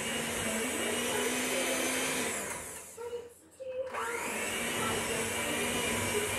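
Electric hand mixer running, its beaters whipping a cream cheese and powdered sugar mixture in a glass bowl. It winds down about two and a half seconds in, stops for a moment, then speeds back up a second later and runs steadily again.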